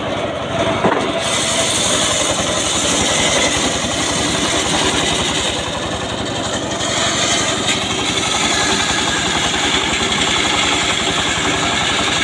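Engine-driven circular saw of a portable sawmill ripping an acacia log lengthwise. The engine's rapid pulsing runs under the hiss of the blade cutting through the wood, which grows louder about a second in as the blade bites.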